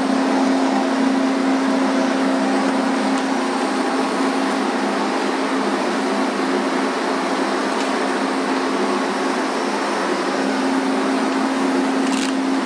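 Spray booth ventilation fan running steadily: an even hum with a constant low tone. A few light clicks come near the end.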